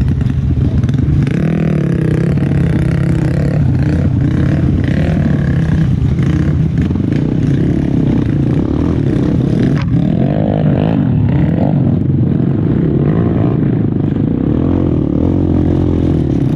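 Single-cylinder engine of a Kawasaki KLX trail bike running under load up a rocky climb, its pitch rising and falling as the throttle is worked.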